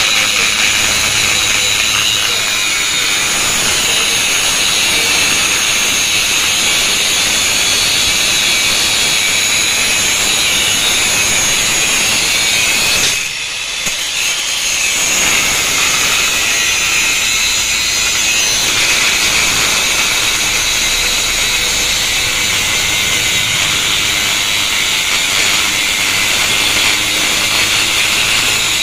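Electric angle grinder with an abrasive cut-off disc cutting through steel rebar: a steady, loud, high grinding noise. About halfway through it briefly drops away as the disc comes off the bar, then bites in again.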